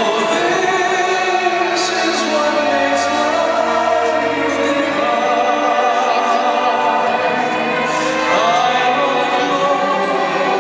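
A song played over an arena sound system: long held sung notes over orchestral backing.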